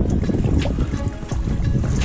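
Wind rumbling on the microphone over choppy lake water, with small waves slapping against the side of a boat in short splashes.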